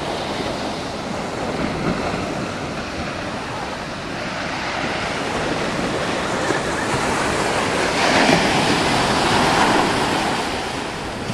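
Ocean waves breaking on the beach, a steady surf wash with a louder wave crashing about eight seconds in.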